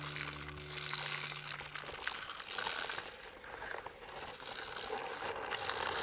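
The last low notes of a music track die away in the first couple of seconds. Then comes a faint gritty crackle with small scattered clicks: a plastic toy truck's wheels rolling and scraping over rough brick paving as it is pushed by hand.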